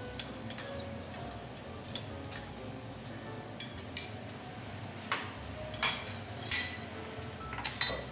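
Knife, carving fork and spatulas clicking and clinking against a steel teppanyaki griddle as a steak is sliced and lifted: a scattering of light metal clicks over a steady low background, with louder ringing clinks in the second half.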